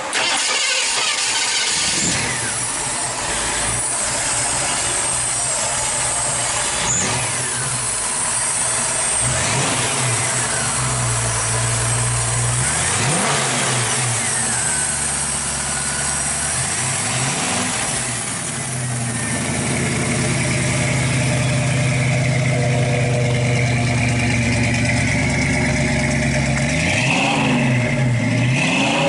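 A Ford 302 cubic-inch V8 starts right at the beginning, then runs at idle. The throttle is blipped several times, each rev rising and falling back.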